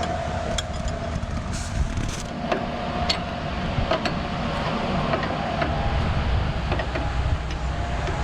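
John Deere skidder's diesel engine running steadily, with a few short metallic clicks and clinks over it.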